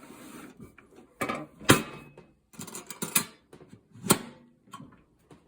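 Tools and a toolbox being handled: a string of irregular knocks and clicks, the sharpest a little under two seconds in and about four seconds in.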